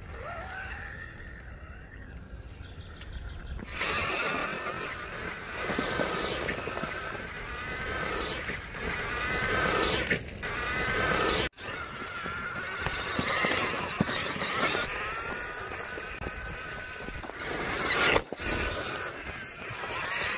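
Axial Wraith radio-controlled rock crawler's electric motor and gears whining, the pitch rising and falling again and again with the throttle. The sound breaks off sharply about halfway through and again near the end.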